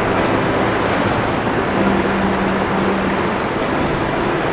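Choppy seawater surging and sloshing around a sea kayak, a steady rushing hiss close to the hull. Sustained low background music notes sit underneath.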